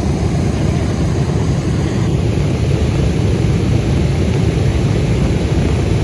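Aircraft engines running: a loud, steady low rumble.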